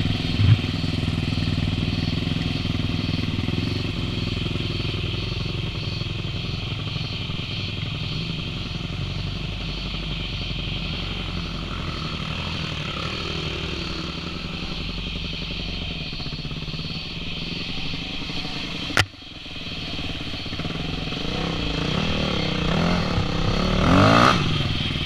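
Dirt bike engines idling and running at low revs, steady. About three quarters of the way through there is a single sharp click and the sound briefly drops, then near the end an engine revs up and down as the bike pulls away.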